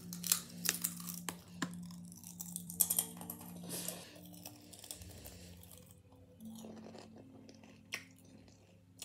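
Walkers potato crisps being crunched and chewed close to the microphone, with dense crunches in the first few seconds, then slower, sparser chewing.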